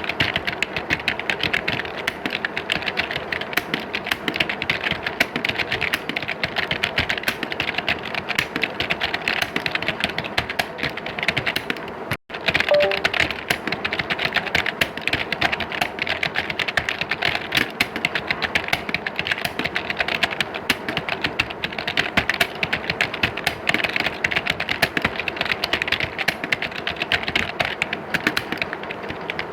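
Many computer keyboards typed on at once in a dense, continuous clatter of key clicks, as in an exam hall of typists. The sound cuts out for a split second about twelve seconds in.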